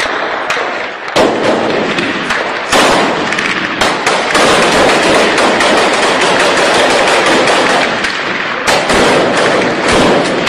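Heavy, continuous small-arms gunfire: loud rifle shots fired in rapid bursts, many overlapping with no pause.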